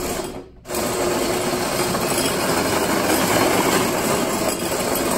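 FTC robot on mecanum wheels driving across a hard polished floor: its electric drive gearmotors and wheels run with a steady mechanical whirr. The sound drops out briefly about half a second in, then runs on loudly.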